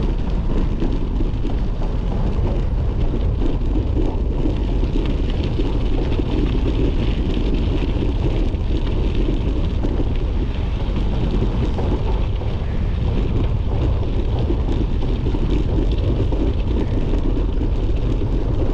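Steady rush of riding wind on the microphone, mixed with the crackling roll of a Trek Checkpoint gravel bike's tyres over a dirt and gravel road.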